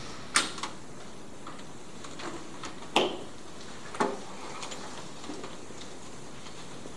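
Wooden chair and table knocked as someone gets up from a library table: three sharp knocks, the loudest about three and four seconds in, with a few faint ticks over a steady hiss.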